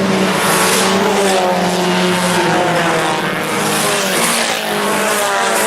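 Four-cylinder IMCA Sport Compact race cars running on the track, their engines droning steadily with the pitch slowly drifting up and down.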